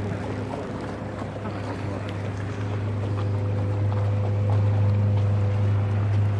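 A boat's motor running at a steady low drone while under way on the river, with wind and water noise. The drone grows slightly louder about halfway through.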